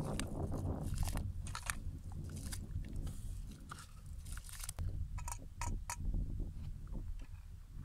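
A metal spoon scraping rice out of a metal bowl into a cooking pot: a run of short scrapes and clinks over a low steady rumble.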